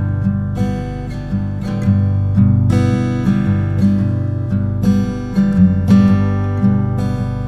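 Background music: a strummed acoustic guitar playing a bluesy tune with a steady rhythm.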